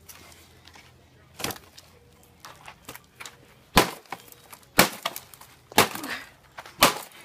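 Machete blows chopping into appliance debris: five sharp strikes, one about a second and a half in, then four about a second apart.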